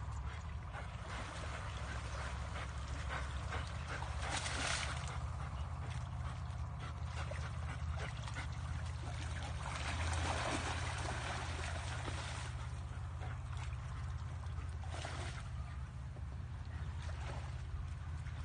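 A hunting dog vocalizing over a steady low rumble, with louder noisy bursts about four seconds in, around ten seconds and near fifteen seconds.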